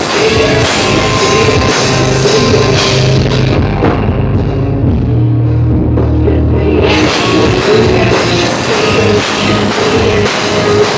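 Rock band playing live and loud: electric guitars, bass guitar and drum kit. About three and a half seconds in, the high end drops away and the bass carries a low passage alone, until the full band comes back in about seven seconds in.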